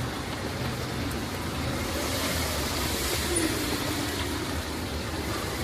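Street traffic on a wet road. A vehicle passes about midway: its tyre hiss swells and its engine note drops in pitch as it goes by.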